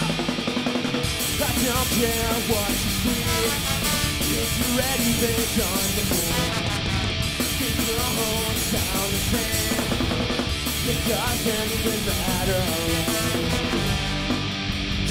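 Live punk rock band playing an instrumental passage on electric guitars, bass guitar and drum kit, with a horn section.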